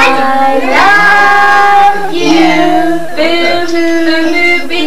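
A young child singing a song in long drawn-out notes that step from one pitch to the next every second or so.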